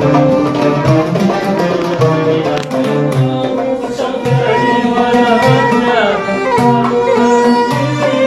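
Live Arabic band music on oud, violin and arranger keyboard, over a steady low percussion beat; a melody line slides down in pitch about six seconds in.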